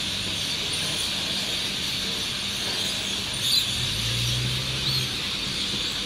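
Dense, continuous high chatter of a large flock of birds roosting in the treetops, blending into a steady hiss, with a sharper call about three and a half seconds in and a short chirp near five seconds. A low engine hum sits under it for about a second and a half past the middle.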